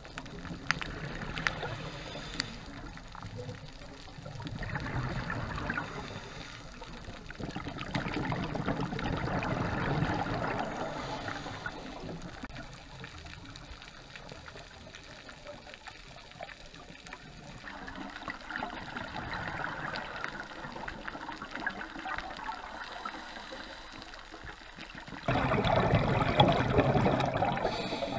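Underwater: a scuba diver's exhaled bubbles gushing from the regulator in swells of a few seconds, about four times, with quiet inhalations between. The last and loudest starts abruptly near the end. A few faint clicks sound early on.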